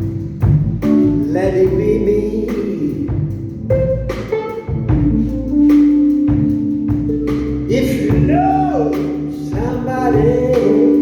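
Live band playing, with long wavering lead notes over a steady bass and drum rhythm.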